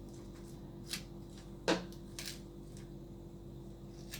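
A fork stabbing and scraping at food in a bowl: a few brief clicks and scrapes, the sharpest about a second and a half in, over a faint steady hum.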